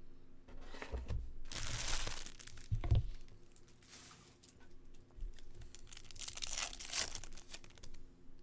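A 2022 Topps Chrome foil card pack being torn open and its wrapper crinkled. The tearing rustle comes twice, about two seconds in and again near the end, with a couple of soft knocks from handling.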